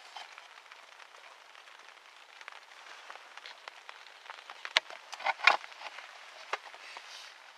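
Faint crackling and rustling with scattered sharp clicks, and a louder rustle about five seconds in.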